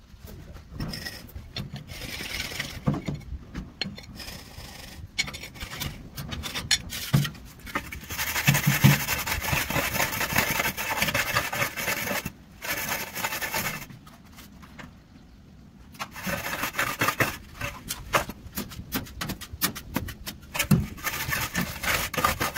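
Rough scraping and rubbing on a hard surface, coming in spells with short pauses between them.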